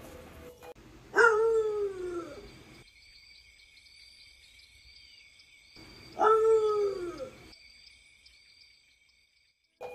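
Guinea pigs wheeking for food: two long, loud squeals, each falling in pitch and lasting about a second and a half, about five seconds apart.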